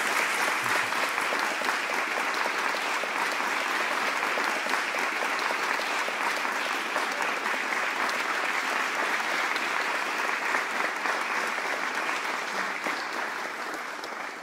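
Audience applauding: dense, sustained clapping from a roomful of people after a speech ends, easing off near the end.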